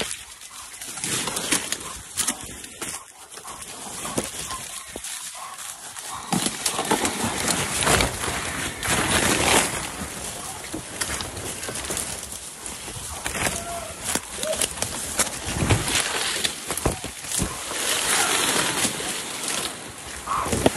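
Footsteps running through brush and dry leaves, with branches and undergrowth brushing and snapping past.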